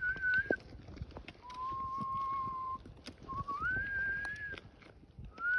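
A person whistling slow, long held notes as if imitating a thrush's song: a high note, then a lower one, then one that slides up and holds, then another rising note near the end.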